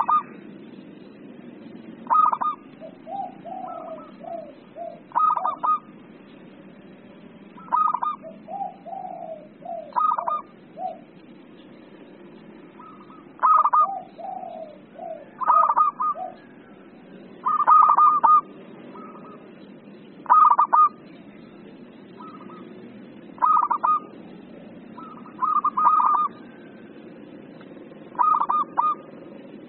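Zebra dove (perkutut) cooing: short phrases of rapid staccato coo notes repeated every two to three seconds. A few lower, rolling phrases fall between them.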